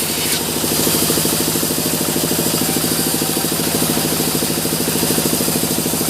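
Sawmill machinery engine running steadily at an even speed, with a fast, regular pulse.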